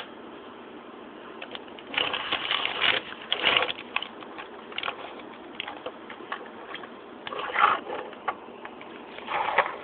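Plastic shake-and-go Lightning McQueen toy car being handled and run: several short bursts of rattling with scattered clicks.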